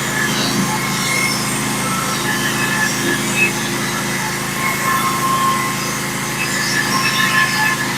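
Small gas engine of a Norwood HD36 portable bandsaw mill running steadily.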